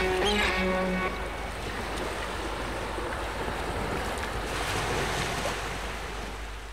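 The last held notes of music end about a second in, leaving a steady rush of sea waves and wind that swells a little past the middle and fades toward the end.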